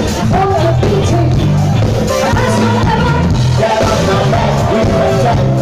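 Live band playing loud rock music, with drums and bass under a singer's voice.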